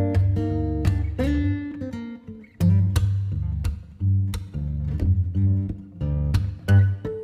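Background music led by plucked acoustic guitar over a bass line, notes struck every half second or so.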